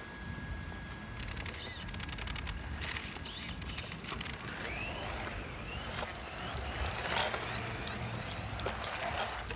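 Electric motors of radio-controlled drift cars whining, rising and falling in pitch as they speed up and slow down. For a couple of seconds after the start, a quick crackle of tyres scrabbling over rough ground joins them.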